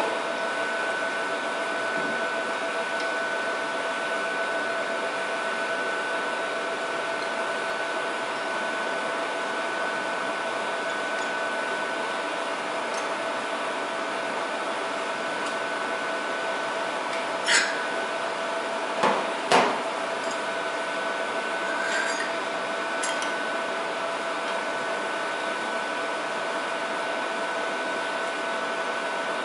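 Steady mechanical hum with a constant two-tone whine from the opened helium leak detector's running machinery, with a handful of sharp metallic clicks and taps from tools and parts being handled, the loudest a little past the middle.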